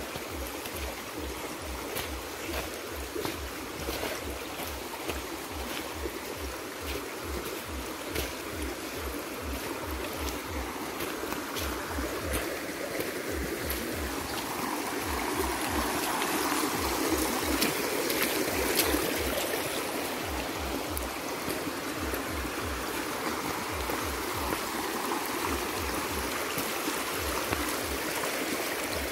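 Fast-flowing muddy river rushing over rocks, a steady rush that swells about halfway through, with regular low thuds and small crunches of footsteps on the stony bank.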